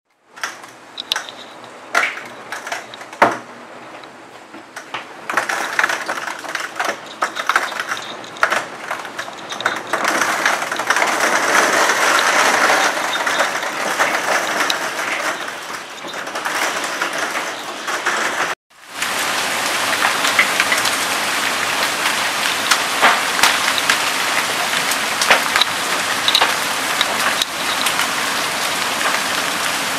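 Hailstorm: hailstones striking, at first as scattered sharp clicks, thickening into a dense steady clatter about ten seconds in. After a brief break in the sound partway through, a dense, steady downpour continues, dotted with individual sharp hail strikes.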